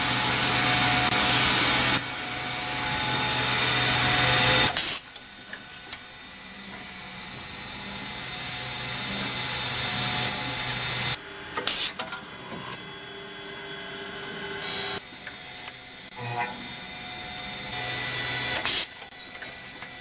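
Automatic lock-cylinder rotor machining machine working brass rotors: spindles drilling pin holes and milling slots, a steady machine hum with sharp mechanical clicks now and then. Loud for the first five seconds, then quieter.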